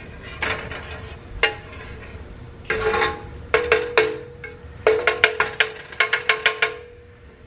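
Plastic slotted spatula scraping and knocking against a square metal nonstick pan of melted butter and garlic, the pan ringing with a steady tone after the strikes. The knocks come singly at first, then in a quick run of about five or six a second in the second half; the butter is not yet sizzling.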